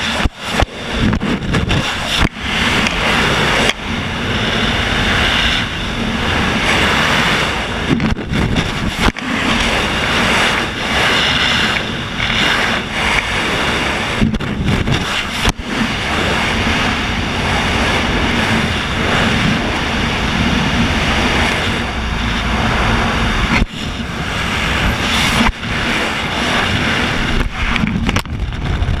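Loud, steady rush of freefall wind buffeting the camera's microphone, with brief dropouts. The rush eases near the end as the parachute opens.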